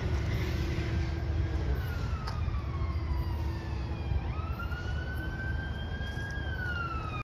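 A siren wailing in the distance: one tone that falls slowly, climbs again about four seconds in, and starts to fall near the end. A steady low rumble runs underneath.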